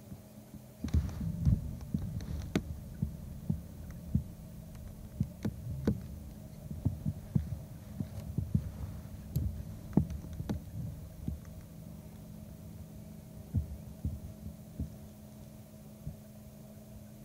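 A steady low hum with a series of irregular knocks and thumps, thickest in the first half, then thinning out and dying away before the end.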